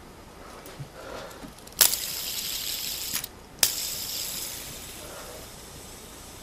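Fidget spinner whirring right up against the microphone: two spells of high rushing hiss, each starting with a sharp click, about two seconds in and again about three and a half seconds in.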